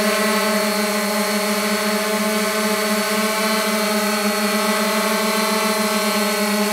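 Multirotor drone's propellers humming steadily in flight, one even pitch with many overtones, as the copter hovers and drifts in position-hold.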